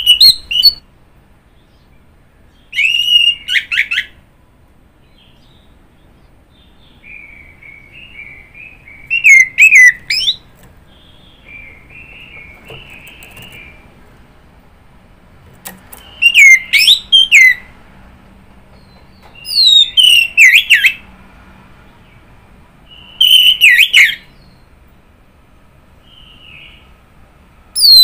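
Orange-headed thrush singing: loud whistled phrases of about a second, each sweeping up and down in pitch, repeated every few seconds, with softer twittering between them.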